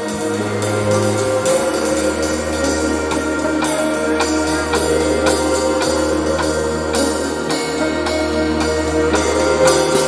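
Synthesizer music: held bass notes that change every couple of seconds under sustained chords, with a steady electronic percussion beat.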